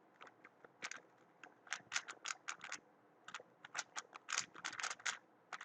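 A Weilong WR M 2019 3x3 speedcube being turned fast, its layers making quick clacking clicks: a few scattered turns at first, then dense flurries from about two seconds in.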